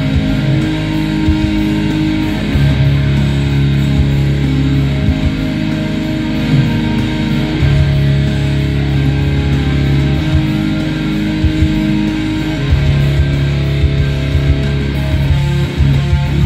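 Les Paul-style electric guitar played as a heavy metal riff, with sustained low notes stopping and restarting in short phrases.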